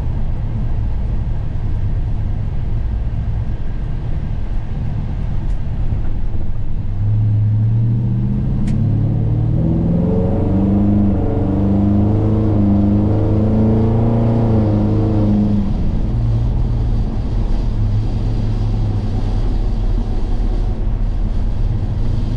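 Ford Gen 3 Coyote 5.0 L V8 in a 1955 F100 pickup pulling hard about seven seconds in. Its pitch climbs and drops back several times as the 10R80 ten-speed automatic upshifts, then settles to a steady cruising drone about sixteen seconds in.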